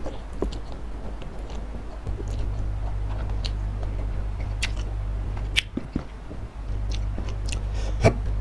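Close-miked chewing of a mouthful of spicy Samyang instant noodles, with irregular wet mouth clicks and a sharper click near the end, over a steady low hum.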